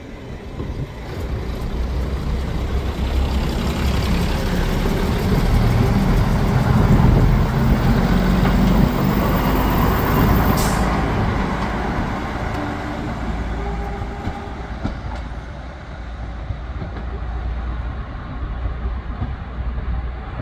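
Class 108 diesel multiple unit running, its underfloor diesel engines and wheels on the rails building to a loud run through the middle and easing off later. A brief sharp high hiss cuts through about ten seconds in.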